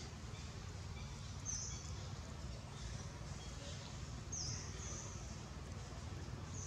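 Short high-pitched animal chirps, about four of them one to three seconds apart, over a steady low rumble.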